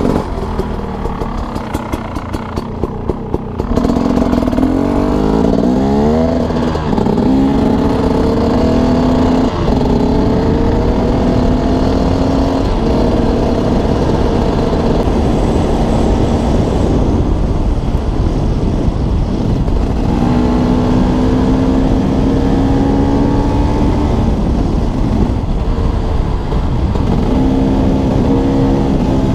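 KTM 300 XC-W two-stroke dirt bike engine, at low revs for the first few seconds, then accelerating about four seconds in, its pitch climbing and dropping with each gear change before holding steadier at speed over a low wind rumble.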